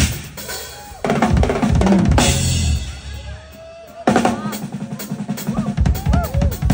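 Drum kit played live with loud bass drum and snare strokes. A dense fill about a second in ends in a crashing cymbal, then comes a short lull. From about four seconds in there is a run of rapid, busy hits.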